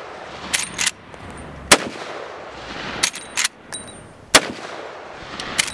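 A Henry .45-70 Government Side Gate lever-action rifle fires twice, about two and a half seconds apart. Each heavy shot is followed by a rolling echo. Between the shots come sharp metallic clicks as the lever is cycled to eject the spent case and chamber the next round.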